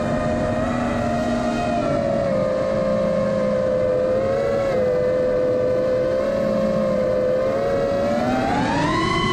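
FPV quadcopter's motors and propellers whining in flight. The pitch holds fairly steady, then climbs near the end as the throttle goes up.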